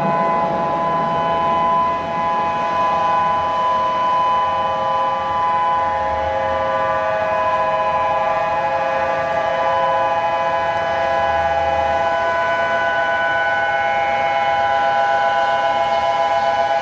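Warning siren sounding a loud, steady chord of several tones held without a break.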